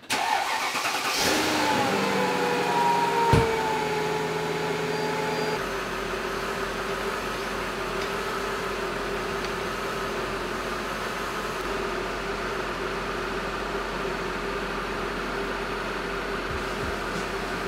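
Mercedes-Benz W220 S-Class engine starting, catching about a second in and settling down from a fast idle, with a sharp click a few seconds in. It then idles steadily with a low, even hum.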